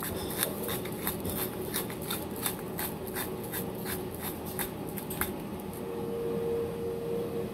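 Manual pepper grinder being twisted, its grinding mechanism giving a rapid ratcheting, crunching click at about three to four clicks a second, stopping about five seconds in.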